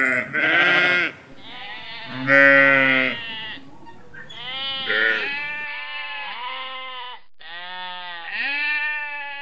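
Sheep bleating several times in loud calls. About five and a half seconds in, goats take over with two long, drawn-out bleats.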